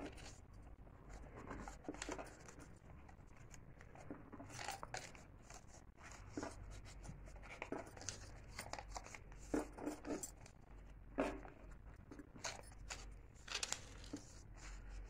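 Paper sheet rustling and crackling as it is creased back and forth into accordion (fan) folds, in faint, irregular short crackles.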